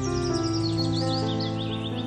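Background music of sustained, held chords, with a quick series of high bird chirps over it.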